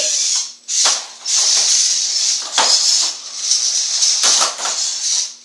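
VEX IQ robots driving on plastic field tiles and the bridge: the tracked robot's plastic tank treads and small motors running, a steady scraping, rattling hiss that breaks off briefly about half a second and a second in as the drivers stop and restart.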